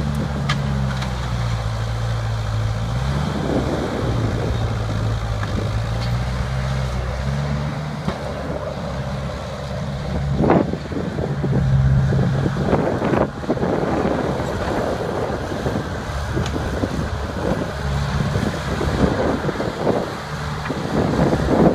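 Diesel engine of a tracked crawler loader running and working under load, its pitch rising and falling as it pushes into a tree stump. Several sharp cracks and knocks sound over it, the loudest about halfway through.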